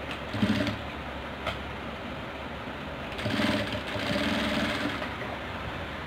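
Industrial lockstitch sewing machine sewing a seam in two runs: a short burst about half a second in, then a longer run of nearly two seconds starting about three seconds in, over a low steady hum.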